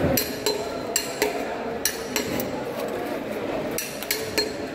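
A long fish knife chopping and cutting through a tuna at the head: a string of sharp, irregular strikes with a metallic ring, some coming in quick pairs.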